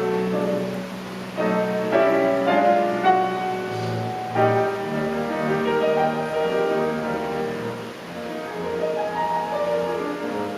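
Orchestra and piano playing classical music live, a continuous run of sustained chords and piano notes.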